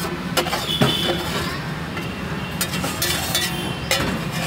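Metal spatula scraping and clinking against a large iron pan as thick curry is scraped out onto a steel plate, with several sharp clinks spread through it. A steady low hum runs underneath.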